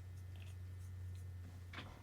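A cat licking its empty food bowl: faint, scratchy little licks and clicks over a steady low hum.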